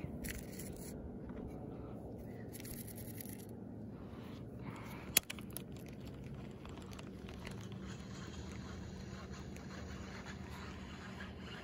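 Spinning rod and reel being handled during a retrieve, with one sharp click about five seconds in, like the bail snapping shut, over a faint steady hum.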